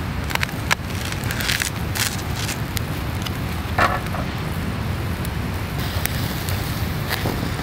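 Charcoal grill crackling under food on a wire mesh, with scattered sharp clicks and ticks as pieces are set down with chopsticks, and a slightly longer crackle about four seconds in. A steady low rumble of wind on the microphone sits beneath it.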